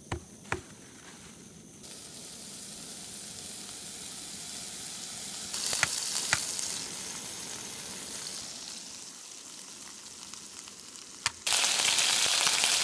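Homemade meatball patties sizzling in oil in a frying pan on a camping stove: a steady frying hiss that grows stronger and is loudest near the end, with a few sharp clicks near the start and about halfway through.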